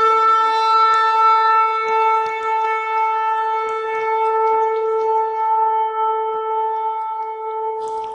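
A shofar sounding one long, steady blast that cuts off shortly before the end.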